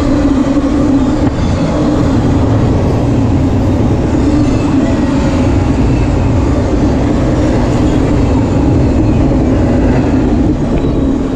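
CSX double-stack intermodal freight train passing close at speed: loud, steady rolling noise of container cars on the rails, with a constant low hum.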